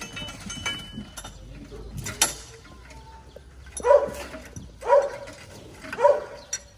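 A dog barking three times, about a second apart, starting about four seconds in.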